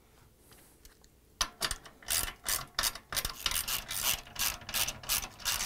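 Socket ratchet wrench clicking in quick repeated strokes, about three a second, as it drives a bolt into the spider arm of a Samsung washer drum. The clicking starts about a second and a half in.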